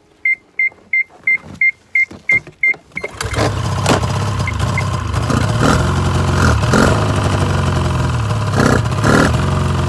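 A run of about nine short electronic beeps, then about three seconds in a Ski-Doo GSX snowmobile engine starts and runs unevenly. It is running on one cylinder because of a fouled spark plug.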